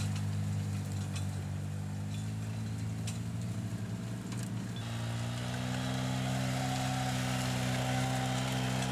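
Polaris ATV engine running at a low, steady speed while pulling a trailer loaded with firewood. The engine note shifts about five seconds in, and a faint whine rises in pitch after that.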